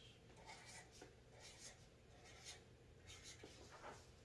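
Faint, irregular short scratches of a pen on paper, close to near silence.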